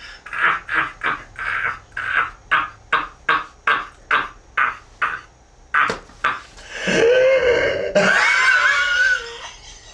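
A man laughing wildly in short loud bursts, about two a second, then a long, wavering high yell near the end.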